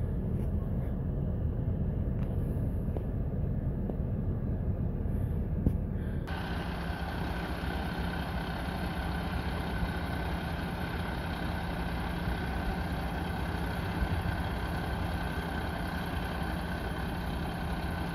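Low rumble of a vehicle engine. About six seconds in it changes abruptly to the steady drone of a sewer vacuum truck running, a low hum with a high whine held on one pitch.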